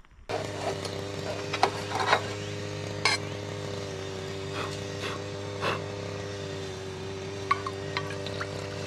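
A steady mechanical hum of fixed pitch starts abruptly just after the beginning, with scattered clicks and knocks over it.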